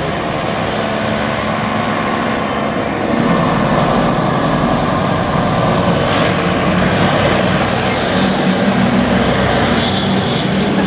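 Fire engine's diesel engine running as the truck drives past, growing louder about three seconds in as it comes close.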